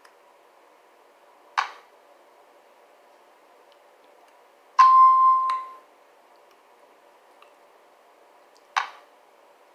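Two short crunches of packed cornstarch being bitten, about a second and a half in and near the end. Midway comes a louder ding: a steady electronic chime with overtones, held for under a second and fading out.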